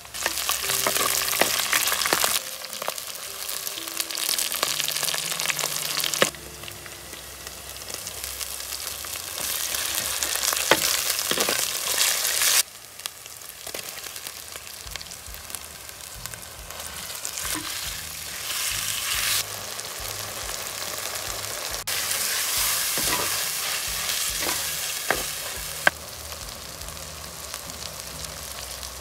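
Green chilies and onions sizzling in hot oil in a clay pot while a spatula stirs them, with a few sharp clicks of the spatula on the pot. The sizzle changes level abruptly in stretches, and is quieter from about twelve seconds in, around when chopped tomatoes go in.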